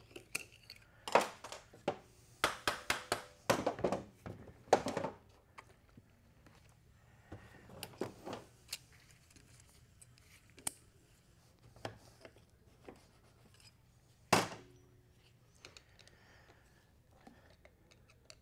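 Scattered metal clicks and knocks of a screwdriver prying at the servo cover of an automatic transmission case and of small parts being handled on a steel bench, with a cluster of sharp knocks in the first five seconds and one more about fourteen seconds in.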